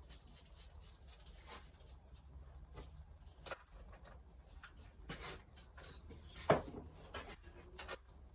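Scattered light clicks, scrapes and knocks of metal parts and hand tools being handled during suspension assembly, with one sharper knock about two-thirds of the way through.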